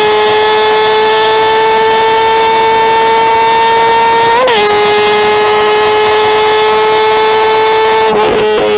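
Sport motorcycle engine held at high revs in a flat-out run, its pitch creeping slowly up as it gains speed. The pitch wobbles briefly about halfway, and near the end the sound breaks up for a moment.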